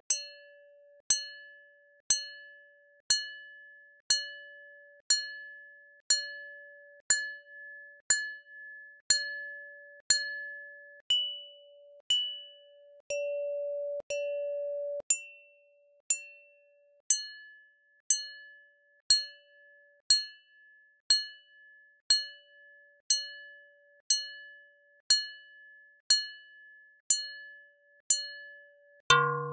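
Synthesized modal sound of a 30 cm metal hand bell struck about once a second, each strike ringing briefly with a few clear tones. The tones change as the strike point moves over the bell, and the middle strikes ring longer on a lower tone. Compressed and uncompressed renderings of each strike are played in turn. Just before the end, a different, lower ringing starts.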